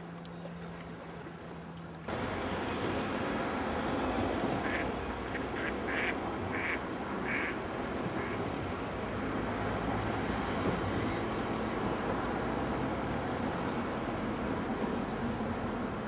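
Ducks quacking, about five short calls in quick succession, over a steady rushing background noise that starts abruptly about two seconds in.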